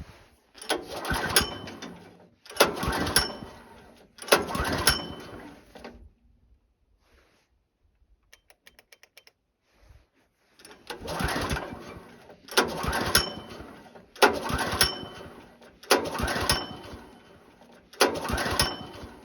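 Wood-Mizer LT15 sawmill's gasoline engine being cranked over again and again in short tries of about a second and a half each, three then five, without catching and running. Faint light clicking in the pause between the two sets of tries.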